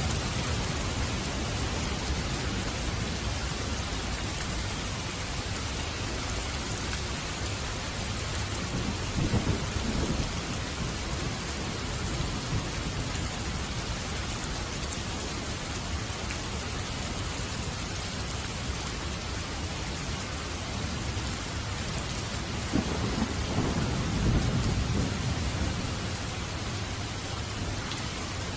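Steady heavy rain falling, with two low rolls of thunder, one about a third of the way in and a longer one near the end.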